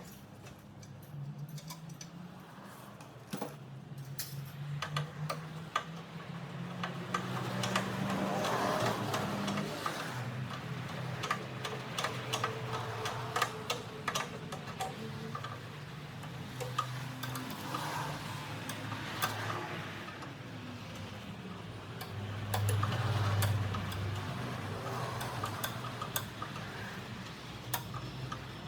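Irregular metallic clicks and clinks of hand tools working on an air compressor's parts during repair, over a low hum that grows louder about three-quarters of the way in.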